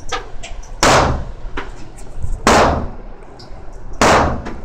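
Three single gunshots about a second and a half apart, each a sharp crack with a long echoing decay off the range walls.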